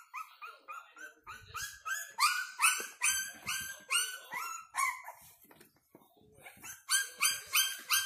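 Young Frenchton (Boston terrier x French bulldog) puppies yelping: a rapid run of short, high cries, about three or four a second, that thins out about halfway through and starts up again louder near the end.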